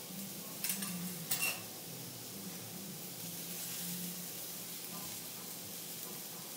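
Shiitake mushrooms sizzling on a teppanyaki steel griddle, a steady hiss. About a second in, a steel knife and spatula clink twice against the griddle plate as the mushrooms are cut.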